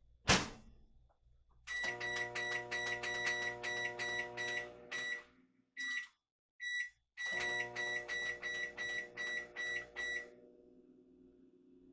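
A microwave oven's door shuts with a knock, then its keypad gives long runs of quick, high, evenly pitched beeps as the cooking time is set, and its running hum starts under them. The hum and beeps stop briefly in the middle, two single beeps follow, then a second run of beeps and the hum resume. The hum carries on after the beeps end, about ten seconds in.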